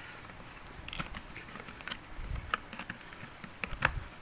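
Irregular light clicks and taps of hard plastic parts being handled and fitted together, about a dozen, with the loudest near the end.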